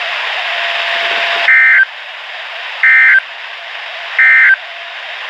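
Radio static, then three short, identical buzzing data bursts about a second and a half apart: the Emergency Alert System (SAME) end-of-message signal that closes a National Weather Service severe thunderstorm warning broadcast.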